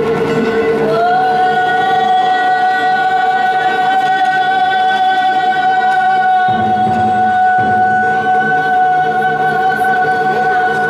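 Traditional Vietnamese water-puppet theatre music played live by the ensemble beside the stage. One long high note glides up into place about a second in and is held throughout, over a steady lower note, with a brief deep note about six and a half seconds in.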